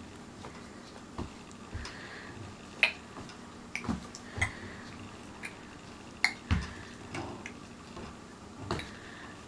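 Baby bouncing in a doorway jumper: irregular sharp clicks and soft thumps, roughly one a second, as the jumper's straps and hardware bob and the feet push off the floor.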